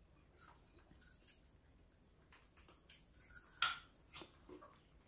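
Faint scattered clicks and small crunches of sliced fruit being picked from a plate and eaten by monkeys and a person, with one sharper click about three and a half seconds in.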